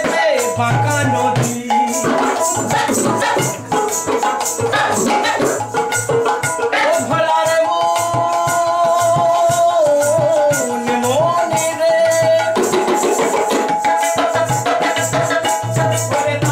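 Baul folk music: a man singing with held, wavering notes over a plucked dotara, a small hand drum beating a steady rhythm, and a constant jingling rattle.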